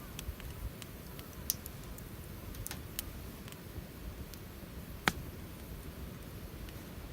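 Campfire wood crackling: a few scattered sharp pops and snaps, the loudest about five seconds in, over a low steady rumble.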